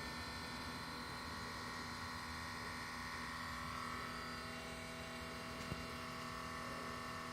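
Fuel pump of a 2016 Subaru STI humming steadily with the engine switched off, with a single faint click about two thirds of the way in. The hum is the fuel pump running a pressure test, which the owner found to be normal.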